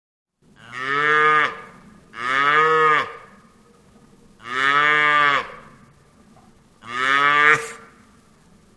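Cattle mooing four times, each moo about a second long and arching up then down in pitch.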